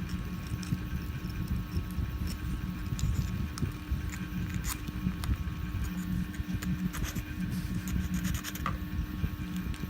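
Small scratches, scrapes and clicks of hand tools cleaning support material off a 3D-printed plastic part, over a steady low hum.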